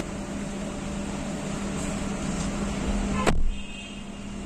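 Steady background hum with a low tone, broken a little over three seconds in by one sharp knock or thud, after which the hum sounds quieter and duller.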